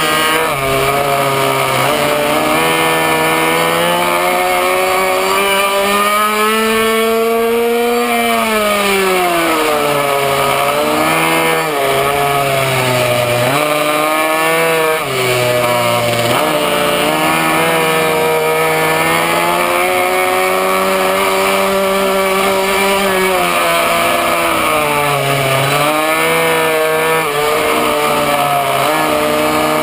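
Minimoto's small two-stroke engine at racing speed, heard from on board. Its pitch climbs as the throttle is held open and drops away when the rider backs off for corners, over and over; the longest climb comes about six to eight seconds in.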